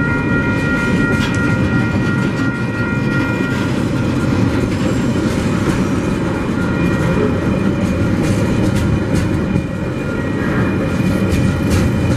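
Container wagons of a freight train rolling past at a level crossing, a steady rumble with the clickety-clack of wheels over the rail joints. A steady high-pitched tone fades out about three and a half seconds in.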